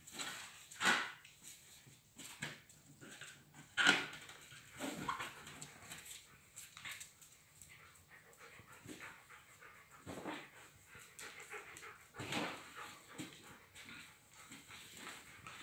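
A corgi panting as it noses and pushes a balloon around a tile floor, with many short knocks and rubs from the play; the sharpest sounds come about one and four seconds in.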